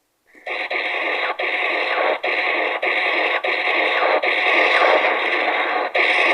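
A synthesized science-fiction sound effect played from a flexi-disc record. It starts after a short silence and is a dense, rushing electronic noise cut off above and below like old radio sound, broken by brief dropouts about every second.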